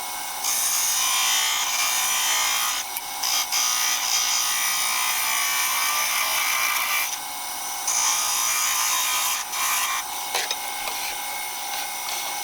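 Skew chisel taking finishing cuts on a piece of Iroko spinning on a wood lathe, a steady hissing shave in three long passes starting about half a second, three and a half and eight seconds in, with lighter cutting near the end.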